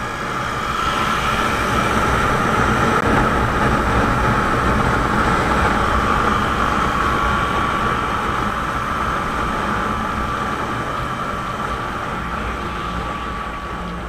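Road noise of motorcycles and scooters riding at speed: a steady drone of engines and wind. It swells over the first couple of seconds, then eases slowly.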